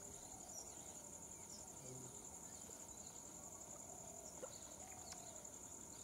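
A steady, high-pitched drone of insects, with a few soft bird calls and faint ticks.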